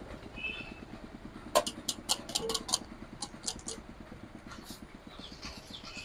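Electric table-top sugarcane juice machine running, with a low, rapid, even rumble from its motor and rollers. A quick run of sharp clicks and knocks comes about one and a half seconds in and lasts about two seconds.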